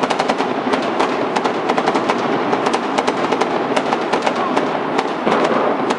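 A fireworks display going off without a break: many sharp pops and bangs overlapping in a dense, rapid crackle.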